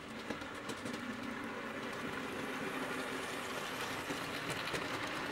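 OO gauge model train running on layout track: a steady, even rumble and hiss with faint, irregular clicks from the wheels.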